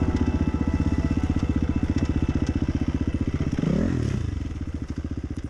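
Dirt bike engine running with a fast, even pulse, rising and falling once in a brief rev about three and a half seconds in. The sound fades out near the end.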